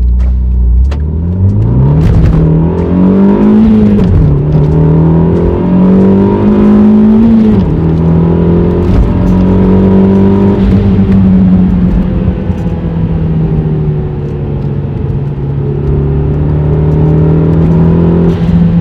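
Renault Megane 225's 2.0 turbo four-cylinder through a Bastuck catback exhaust, heard from inside the cabin. It accelerates through two gears, the pitch rising and then dropping at a shift about four seconds in and again about seven and a half seconds in. It then settles to a steady cruise that slowly eases off.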